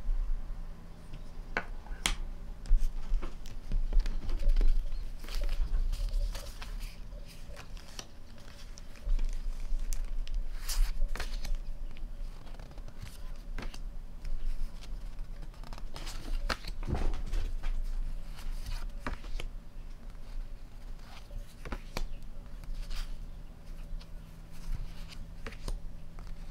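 Stiff paper calendar cards being leafed through and handled by hand: irregular short rustles and light taps.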